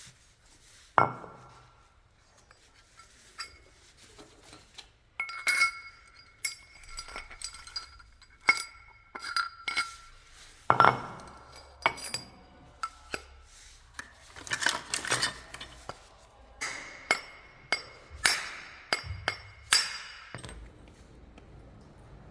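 Metal tools and scooter drivetrain parts clinking and knocking in irregular strikes, some leaving a short ringing tone. This is hand work on the driven-pulley bearings.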